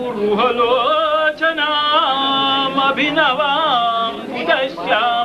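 A voice chanting Hindu devotional verses in a sung melody, with long held notes that waver and slide between pitches and short pauses for breath.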